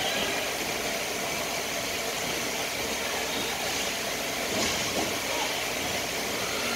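Steady hiss of indoor ice-rink ambience during play, with a brief swell of noise about four and a half seconds in.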